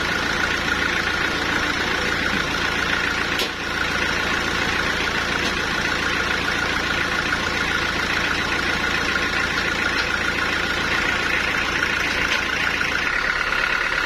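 Homemade band sawmill at work on a log of ulin (Bornean ironwood): its belt-driven diesel engine runs steadily under load, with a steady high tone over the engine noise. There is a brief dip about three and a half seconds in.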